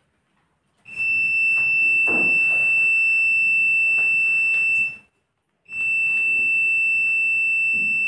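Multimeter continuity buzzer giving a steady high-pitched beep twice: one beep of about four seconds, a short break, then another that runs on past the end. The probes are on a washing-machine motor during a ground (earthing) check, and the tone means the meter reads a closed circuit.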